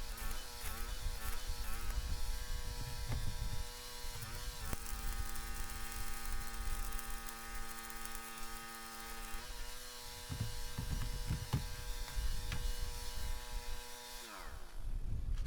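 Shielded metal arc (stick) welding with an E7018 rod on rusty steel: a steady electric buzzing hum over a crackling hiss, its pitch wavering slightly. Near the end the hum falls in pitch and stops.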